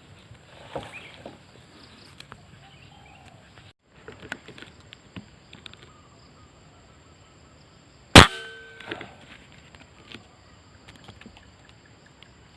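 A single sharp air-rifle shot about eight seconds in, followed by a brief ringing tail. Faint rustling and small clicks come before it.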